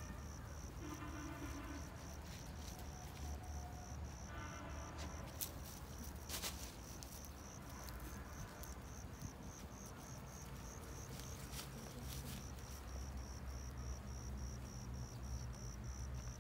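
A cricket chirping steadily in a high, evenly pulsed rhythm of several chirps a second, over a low rumble, with two sharp clicks about halfway through.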